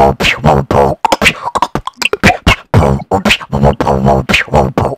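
A man beatboxing: a quick, unbroken rhythm of mouth-made kick-drum thumps and snare and hi-hat clicks, with some pitched, voiced notes mixed in.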